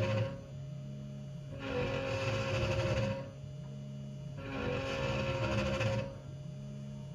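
CNC 3018 Pro desktop router milling a pocket. A steady spindle hum runs under a harsher cutting noise that swells and drops back in a regular cycle about every three seconds.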